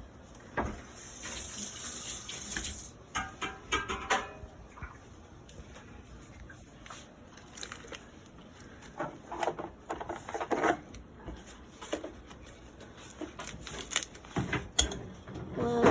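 Kitchen work sounds: a tap runs briefly about a second in, followed by scattered knocks and clicks of utensils and dishes.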